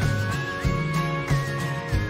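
Background music with a melody line that steps up and back down over a steady beat.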